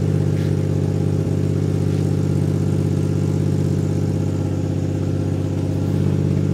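Toyota 1JZ inline-six engine idling steadily through a newly fitted 3-inch exhaust with muffler, just after being started.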